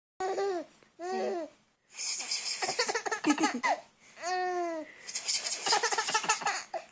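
A baby laughing in repeated bouts, set off by an adult's playful noises between and under the laughs.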